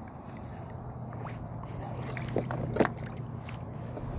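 Faint handling noises: a few light clicks as the angler works a freshly caught flounder onto a stringer at the side of the kayak, over a steady low hum.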